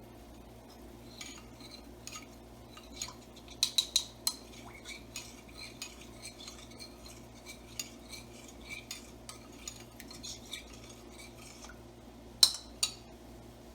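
A cooking utensil stirring shrimp and green peas in sauce in a pan, with irregular clinks and scrapes against the pan. There are a few louder knocks about four seconds in and two sharp knocks near the end.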